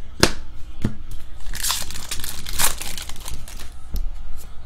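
Sports-card pack wrapper being torn open and crinkled for under two seconds, starting about a second and a half in, among a few sharp clicks of cards being handled.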